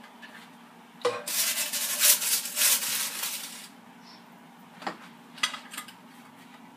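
A spatula scraping along the bottom of a Power XL air fryer basket to get under mini pizzas: a knock, then a rasping scrape of about two and a half seconds, followed by a few light clicks as the pizzas are set on a plate.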